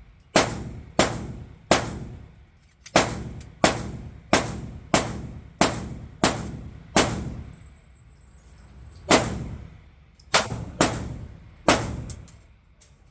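Glock 23 pistol in .40 S&W firing about fourteen shots in steady strings, roughly one and a half a second, with a pause of about two seconds past the middle. Each shot rings off briefly.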